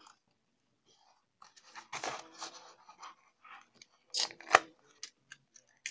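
Large sheets of glitter cardstock being lifted and shuffled by hand: paper rustling and scraping, with two sharp crackles a little over four seconds in.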